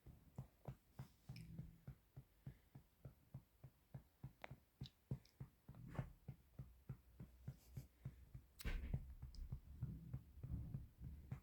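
Faint, steady patting on a baby's back to bring up a burp, about four soft pats a second. A louder low rumble of movement joins the pats in the last few seconds.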